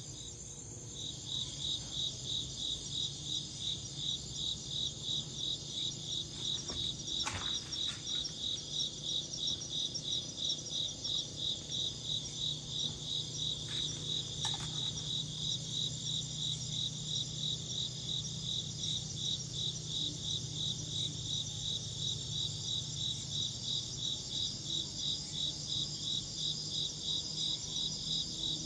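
Crickets chirping in a steady, even rhythm of a few chirps a second, over a continuous higher-pitched insect trill.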